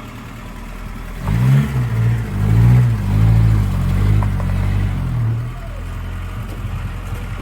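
An engine running over a steady low hum, revving up and down in several swells for a few seconds before settling back.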